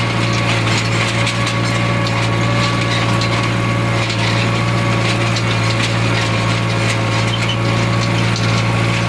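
Tractor engine running steadily under load while pulling a chisel plow through hay ground: a constant low drone with a steady whine over it.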